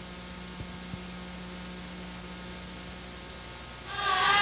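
Steady electrical hum over hiss, with two faint clicks about half a second and a second in. Near the end a louder sound of several held pitches comes in.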